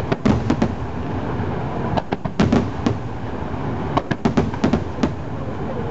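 Aerial firework shells bursting in quick succession: clusters of sharp bangs and crackles near the start, around two to three seconds in, and again around four to five seconds, over a steady rumble.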